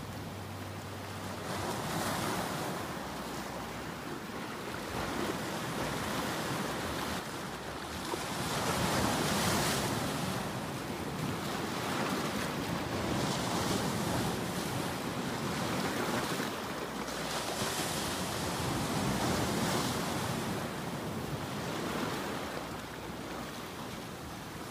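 Ocean surf: waves breaking and washing in, a steady rushing noise that swells and fades every four or five seconds.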